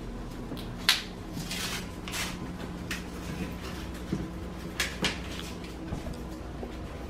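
Paper rustling and crinkling as a greeting card and its envelope are handled, with a few sharp clicks and snaps, the loudest about a second in and two close together about five seconds in. A low steady hum runs underneath.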